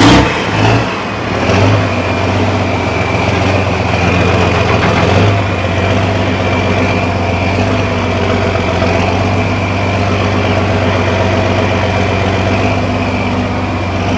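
Engine of an 1800-horsepower pulling tractor just after starting, surging a few times in the first couple of seconds and then idling steadily and loudly, with a steady high whine over the engine note.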